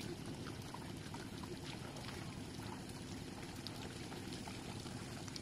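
Faint dripping and light splashing of shallow paddy water as rice seedlings are pushed by hand into the flooded mud, with a few small ticks over a steady low background noise.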